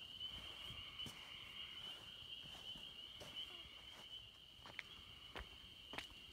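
Crickets trilling steadily in one unbroken high band, with a few faint footsteps on pavement in the second half.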